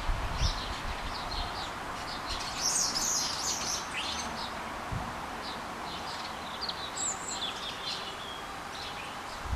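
Small birds chirping, many short high calls throughout, with a busier flurry of calls about three seconds in. Wind buffets the microphone at the start and once mid-way.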